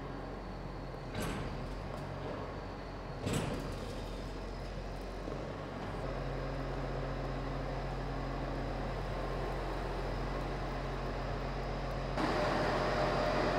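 Farm tractor engine running steadily while it moves a grain cart into a metal shed, with two clunks about one and three seconds in as the rig jerks on a jumping clutch. The engine note steps up about six seconds in and gets louder near the end.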